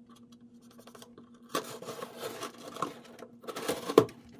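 Packaging being torn open: scratching, rustling sounds starting about a second and a half in, with a sharp click near the end.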